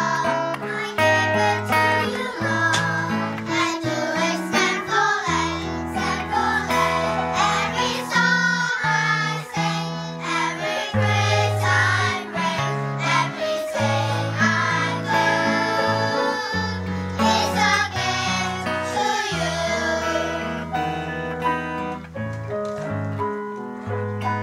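Children's choir singing with piano and violin accompaniment.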